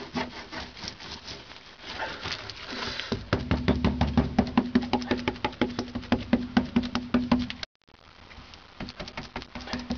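A brush daubing thick bitumen anti-corrosion mastic onto a car body's floor metal, in quick rubbing strokes several times a second, with a steady low hum under them. The sound drops out for a moment near the end, then the strokes go on.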